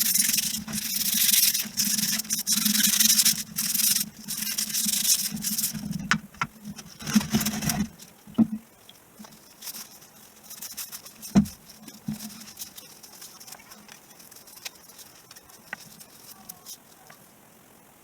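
Metal driveshaft parts being cleaned: loud scrubbing in uneven strokes over a low steady hum for about eight seconds. Then the hum stops, and a few light clicks and knocks of parts being handled follow, one sharper knock among them.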